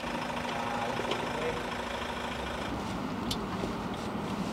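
Box truck's engine idling steadily, with a couple of faint ticks.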